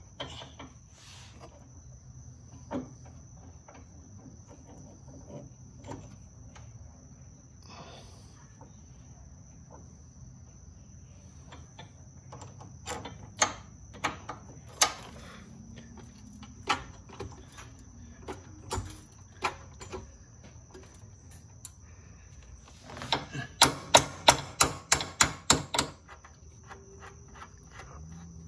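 Metal suspension hardware and hand tools clinking as a Perrin sway bar end link is fitted to the front suspension: scattered sharp clicks, then near the end a quick run of loud metallic clicks, about four a second, for about three seconds.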